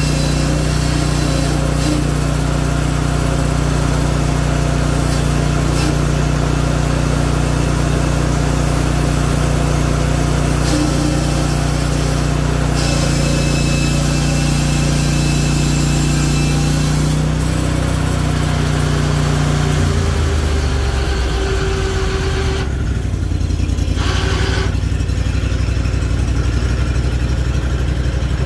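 Hudson Oscar 336 portable band sawmill running at a steady high engine speed as its band blade cuts through a cherry log. About twenty seconds in, the engine note drops lower and rougher as it slows down.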